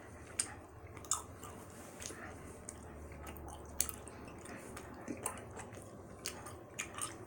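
Close-up chewing of a tough gummy candy: irregular wet smacks and clicks of the mouth over a low hum.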